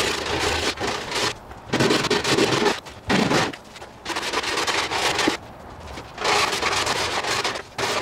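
Plywood star edge being smoothed by hand: about five long rubbing strokes, each roughly a second, with short pauses between them.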